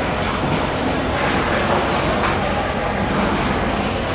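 Steady, loud rumbling background noise with a few faint scrapes or knocks in the middle.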